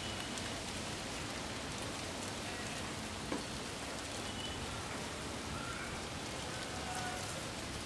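Steady wind blowing, an even rushing hiss, with a few faint brief whistles over it.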